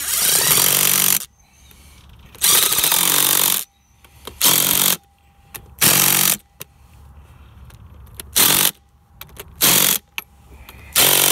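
Ridgid cordless impact driver running pump casing bolts down in about seven short bursts, the first two a second or more long and the rest about half a second, snugging them to near tight. The driver lacks the torque to fully tighten them.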